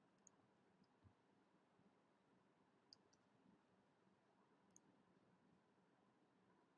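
Near silence, broken by a handful of faint, sharp clicks from a computer keyboard and mouse as a word is typed into a browser: a close pair near three seconds and a last click near five seconds.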